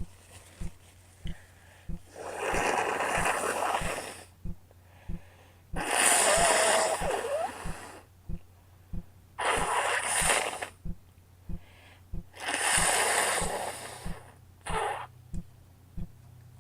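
A woman blowing her nose wetly, four long blows and a short fifth one near the end. A steady low ticking, about three ticks every two seconds, runs beneath.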